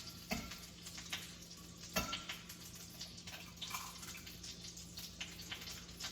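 Chicken egg frying in melted butter in a pan: a faint, steady sizzle with light crackling, and a few sharp taps, the loudest about two seconds in.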